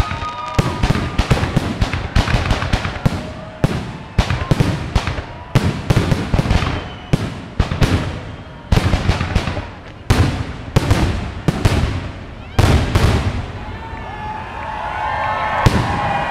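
Fireworks finale: a dense, rapid barrage of aerial shell bursts, several booms and cracks a second. The bursts stop about two seconds before the end, and a crowd starts cheering.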